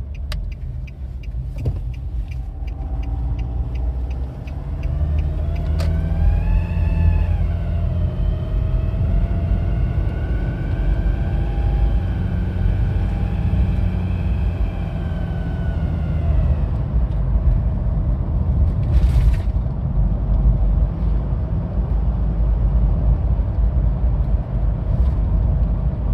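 2007 Nissan Pathfinder 2.5 dCi diesel running under throttle with a low rumble. From a few seconds in until past the middle, a squeaking whistle of several pitches rises and falls above it. The squeak comes with the throttle and its cause is unknown: two workshops found no holes or damage in the vacuum pipes.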